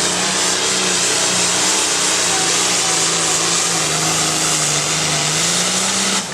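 Diesel farm tractor engine at full throttle pulling a weight-transfer sled: a loud, steady engine drone over a dense hiss, its pitch sagging a little and then recovering. The sound cuts off suddenly near the end.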